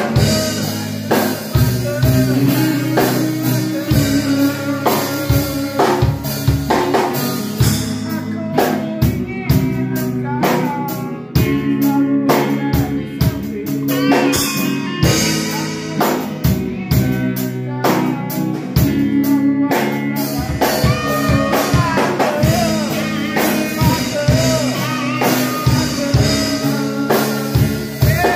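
Live band rehearsal: an electric guitar played through a small Fender combo amp over a Premier drum kit keeping a busy rock beat, with bent guitar notes.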